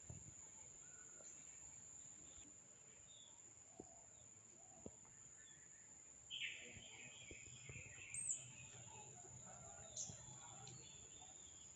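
Faint outdoor ambience: a bird gives a short chirping call about six seconds in and another brief chirp near eight seconds, over a steady high-pitched tone and a few soft ticks.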